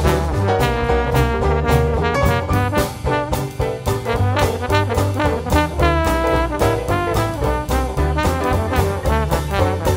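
Background music: an upbeat jazz/swing tune led by brass instruments over a steady beat.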